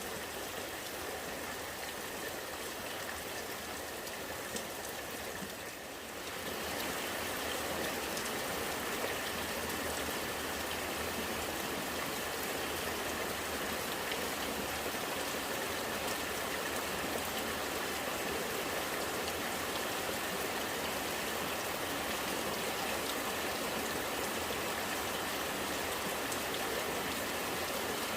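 Steady rain with rainwater running and gurgling like a small stream. The sound dips briefly about six seconds in and comes back a little louder.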